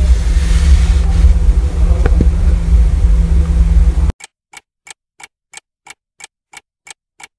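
A loud low rumble cuts off suddenly about four seconds in. A clock then ticks steadily, about three ticks a second, as a sound effect marking the passing of time.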